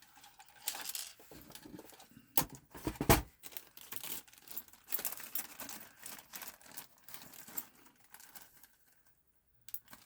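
Plastic and metal parts of a disassembled PS4 Pro being handled and set down: irregular rustling, clicks and knocks, the loudest two knocks about two and a half and three seconds in.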